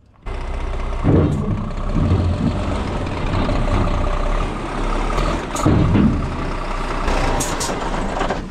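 Scania G-series truck's diesel engine running as the truck creeps up onto a trailer's loading ramps, louder for moments about a second in and near six seconds.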